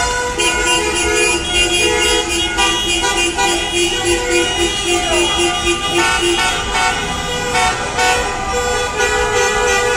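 Many car horns honking at once in a slow procession of cars, steady blasts of different pitches overlapping. One horn beeps in short rapid toots, about three a second, for the first six seconds.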